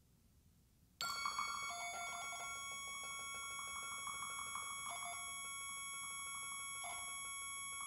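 Percussion and live electronics: a cluster of high, steady ringing tones starts suddenly about a second in and holds at an even level, with a fast fluttering tapping under it and a lower tone flickering in and out a few times.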